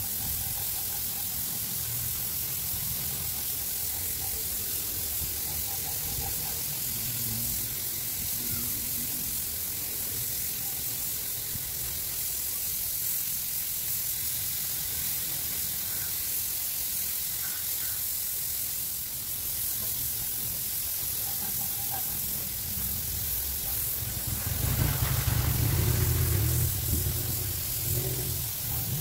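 Compressed air hissing steadily through a gravity-feed spray gun as it lays the first coat of high-solid clearcoat. A louder low rumble joins for a few seconds near the end.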